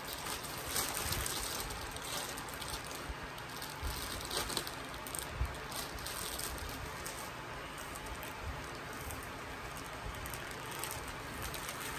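Rustling and crinkling as clothes and their packaging are handled, with scattered small crackles and clicks.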